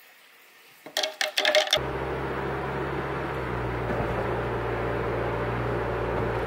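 A quick run of sharp clicks and clatters, as of a plastic cup being handled, then steady car-cabin noise from engine and tyres while driving: an even rush with a low hum.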